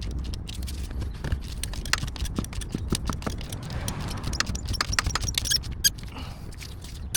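Irregular metallic clicks and clinks of hand tools and bolts being worked during alternator reassembly, with a quick run of sharper clicks about five to six seconds in, over a steady low background rumble.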